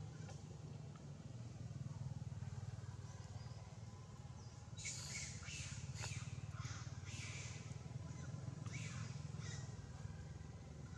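A run of short, high chirping calls from an animal, starting about five seconds in, over a steady low hum.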